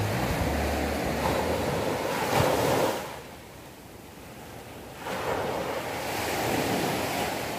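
Small sea waves washing onto the shore: one surge in the first three seconds, a lull, then another building from about five seconds in, with some wind noise.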